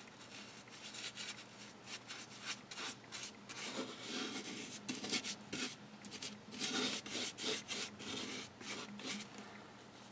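Small paintbrush scrubbing and dabbing black acrylic paint onto a plaster surface: faint, irregular scratchy strokes that thin out near the end.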